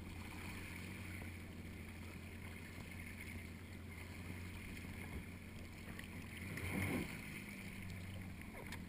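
Jet ski engine idling with a low, steady hum, under faint water and wind noise; a short swell of water noise comes about seven seconds in.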